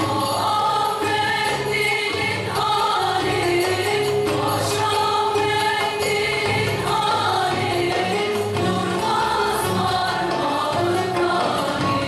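Women's choir singing a Turkish folk song (türkü), accompanied by plucked bağlamas.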